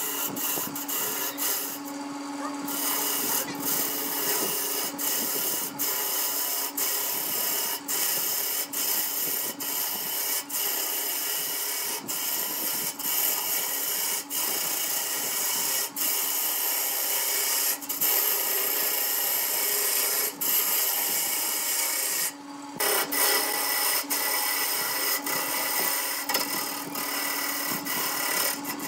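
Wood lathe running while a turning tool cuts into a spinning block of laminated wood: a steady scraping hiss of the cut over the lathe's even whine. The cutting stops for a moment twice, about two seconds in and again near twenty-two seconds.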